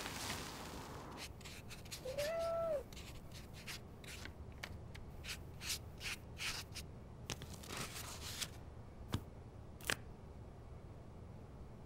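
A single short cat meow about two seconds in, followed by a run of quick scratching strokes as a calligraphy brush writes on paper, and one sharp click near the end.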